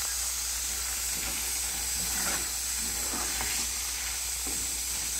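Spaghetti being stirred and tossed into a hot tomato sauce with a wooden spoon, over a steady sizzle from the pot, with soft irregular stirring noises.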